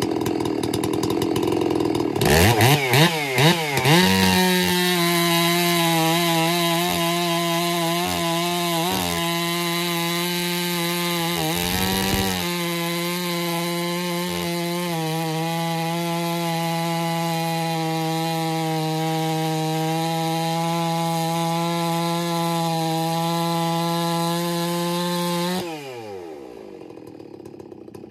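Two-stroke chainsaw idling, then blipped up to speed with a few quick throttle swings about two seconds in. It then runs at a steady full-throttle pitch while cutting into a large log. Near the end the throttle is released and the engine falls back toward idle.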